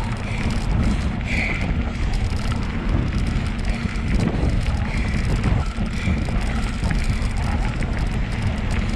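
Wind buffeting the microphone over a bicycle rolling along a dirt trail, a steady loud rumble.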